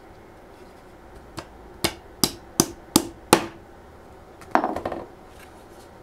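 Claw hammer driving nails into a cedar fence-picket board: a light tap, then five sharp blows about three a second, each with a short ring. Near the end a brief clatter as the hammer is set down on the workbench.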